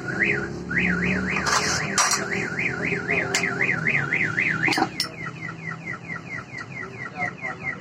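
Electronic alarm siren sounding a rising-and-falling warble about three times a second, switching about five seconds in to faster, short falling chirps, over a steady low hum with a few sharp clicks.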